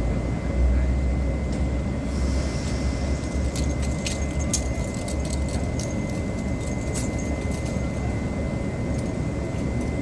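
Steady low rumble of a train at the station platform, with a run of sharp metallic clicks a few seconds in.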